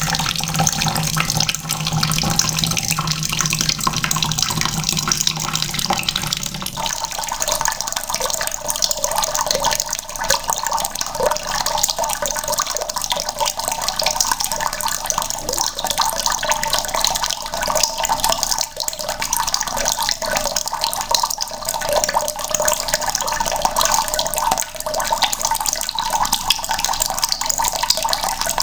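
Water running from a tap into a bucket, a steady splashing rush. About seven seconds in the sound changes suddenly, losing its deeper part and turning brighter.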